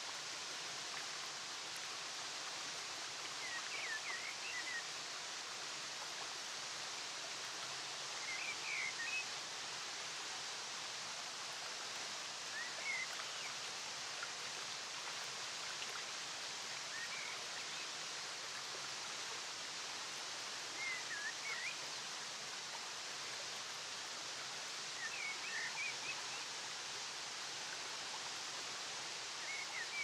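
Steady rush of falling water, with a bird singing a short chirping phrase about every four seconds.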